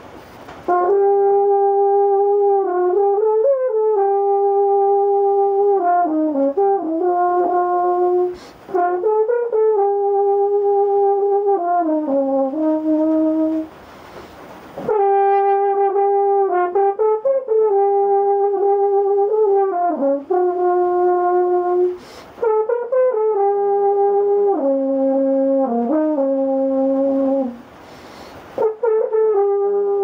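E-flat horn playing a jazzy improvised melody, one note at a time in long phrases that step and slide between pitches, with brief pauses for breath about four times.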